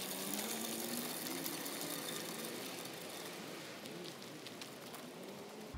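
The 3D-printed plastic 10-inch wheels of a pull cart rolling over a gravel path: a steady crackling crunch made up of many fine ticks.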